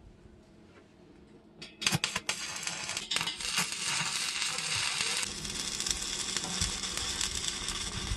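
Arc welding on 50 mm square steel tubing. After a quiet start, the arc strikes with a few sharp cracks just under two seconds in, then burns with a steady crackling sizzle.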